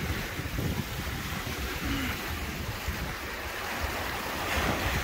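Small lake waves washing against a rocky shore, a steady wash that swells slightly near the end, with wind on the microphone.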